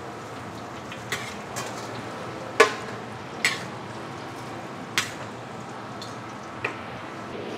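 Long-handled metal spatula scraping through fried rice and knocking against a giant steel wok, about six sharp clanks with the loudest about two and a half seconds in, over a steady frying hiss.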